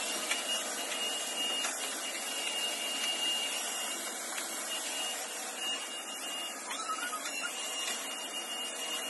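Stick vacuum cleaner running steadily, its motor giving a high whine.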